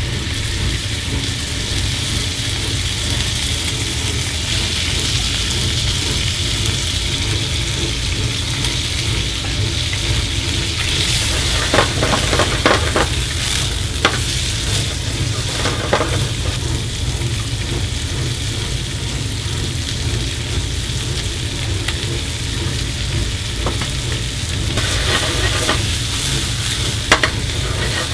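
Bacon and sausage slices sizzling steadily in a nonstick frying pan on a gas range, over a constant low rumble. Sharp clicks of metal tongs against the pan come in clusters partway through and again near the end, as the meat and then onions and peppers are turned and tossed.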